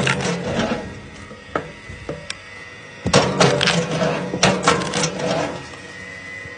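Electric log splitter forcing a log apart on its wedge: a run of sharp cracks and snaps of splitting wood from about three seconds in, with the split halves knocking and clattering onto the steel table. A few knocks come about the first second as the log is set down, with a faint steady hum throughout.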